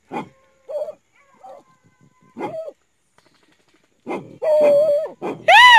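Hunting dog baying at a burrow where a paca is cornered: a few short yelps, then a drawn-out whine about four seconds in, and near the end a loud howl that rises and falls in pitch.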